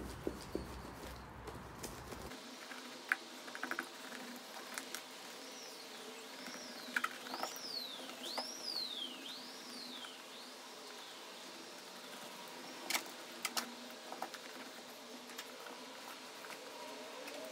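Small hand seam roller worked back and forth over tape on a rubberised drysuit: soft knocks and handling noise, and about six squeaks, each rising then falling in pitch, about one a second, in the middle.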